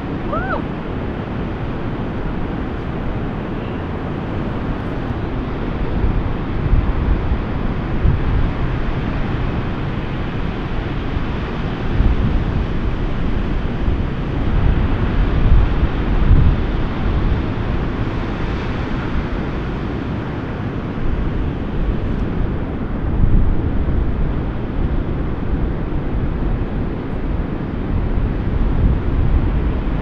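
Heavy ocean surf breaking and washing steadily, with wind gusting on the microphone in low rumbles now and then.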